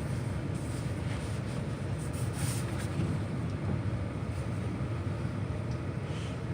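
Steady low rumble with a light hiss above it and a few faint ticks, consistent with a vehicle cab in a storm.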